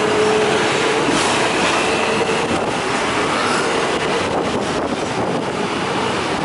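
Double-decker electric tram running along street rails, heard from the upper deck: a steady rumble and rattle with a faint wavering whine.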